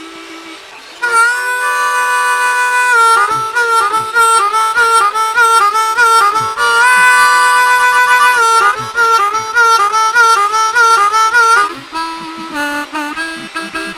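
Blues harmonica playing an instrumental break in the background music: long held notes and bent notes, softer at first and jumping louder about a second in.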